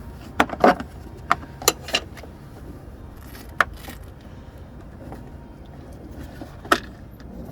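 Sharp clicks and knocks of a truck's headlight assembly being handled and its wiring connector unplugged: a quick run of five in the first two seconds, one more about three and a half seconds in and another near the end, over a steady low hum.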